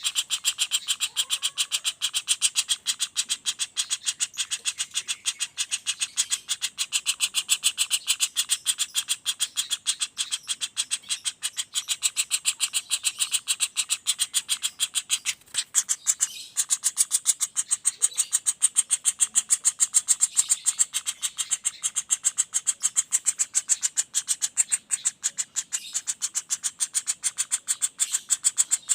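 Juvenile common flameback woodpecker (pelatuk bawang) giving a fast, unbroken rolling call: a rapid even run of high, sharp notes, several a second. The run breaks off briefly about halfway through.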